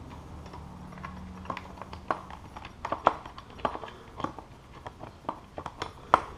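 Socket wrench ratcheting on a motorcycle fastener, giving short metallic clicks at an uneven pace of about two or three a second.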